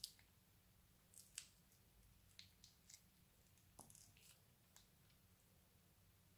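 Crunchy slime being handled, giving faint, scattered crackles and clicks at irregular intervals.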